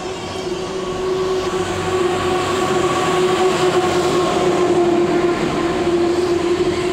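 Street traffic passing below: a motor vehicle's engine with a steady droning note over a hiss of road noise, growing louder as it passes close about halfway through.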